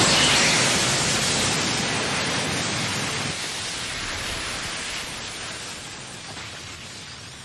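Anime sound effect of the Chidori driven into a shield of sand: a loud hissing rush that starts suddenly and slowly fades away over several seconds.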